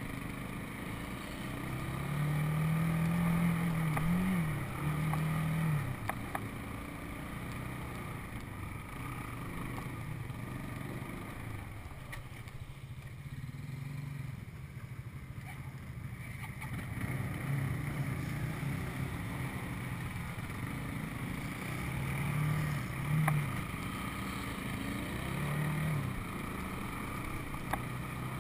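Four-wheeler (ATV) engine running under way, heard from on board, rising and falling as the throttle opens and eases off, with its strongest pulls a few seconds in and again near the end. A few short knocks come through as it rides the rough dirt trail.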